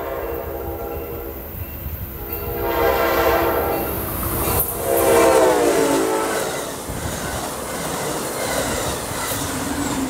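An Amtrak passenger train's horn sounding three blasts as the train approaches and passes at speed, the last one dropping in pitch as the locomotive goes by. The wheels of the passing coaches and the trailing locomotive then rumble and clatter over the rail joints.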